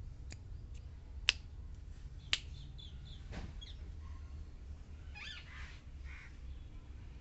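A few sharp clicks in the first seconds, the loudest two about a second apart, then a puppy's short high squeaks about five seconds in.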